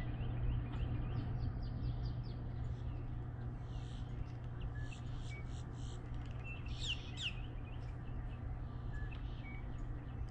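Birds chirping and calling, with a couple of sharp falling notes about seven seconds in, over a steady low hum.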